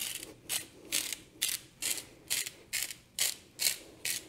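Salt grinder being twisted by hand: a regular run of short, dry grinding crunches, about two a second.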